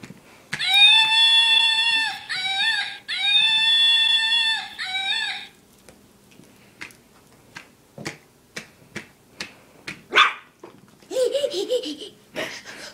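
A puppy whining in long, high, steady cries, four in a row over about five seconds, each ending in a quick drop in pitch, followed by scattered light knocks and a lower warbling cry near the end.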